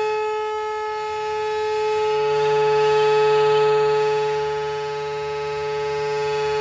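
A horn sounding one continuous, steady-pitched tone that swells and fades in loudness, dipping about a second in and again about five seconds in.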